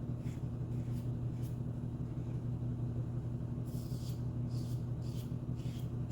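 A laundry machine running with a steady low hum, over short scratchy strokes of an adjustable safety razor shaving lathered stubble, coming more often in the second half.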